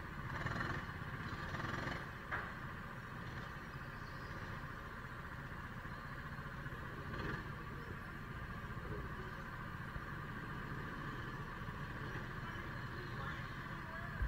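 Steady low rumble with a constant mid-pitched hum from go-karts waiting in the pit lane of an indoor kart track, with a few faint knocks.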